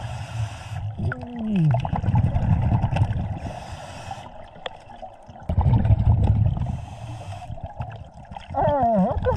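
Scuba diver breathing underwater through a regulator. A short hissing inhale comes about every three and a half seconds, alternating with longer, low bubbling exhales.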